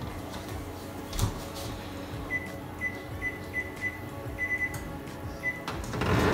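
Electric oven's control panel beeping: a run of short single-pitch electronic beeps, unevenly spaced, as the bake timer comes due. Near the end the oven door is pulled open with a louder rush of noise.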